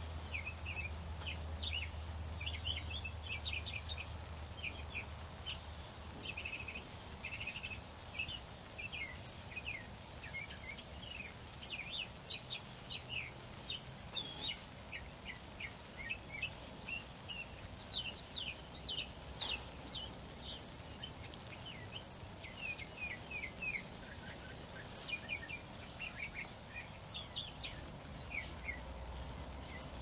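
A large flock of blackbirds calling all together: a dense, continuous chatter of short squeaky chips, with sharper, louder calls standing out every second or two.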